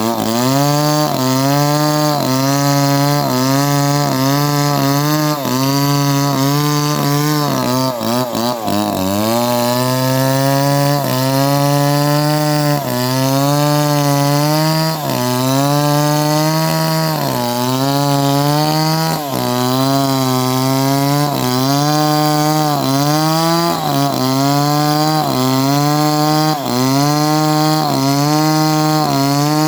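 Chainsaw running at high revs through wood, its engine pitch dipping under load and recovering every second or two. About eight seconds in it bogs down deeper, then picks back up.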